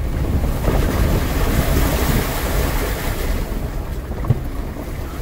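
Jeep Wrangler driving along a wet dirt track: a steady low rumble, with a rushing hiss that swells about half a second in and fades a little past the middle.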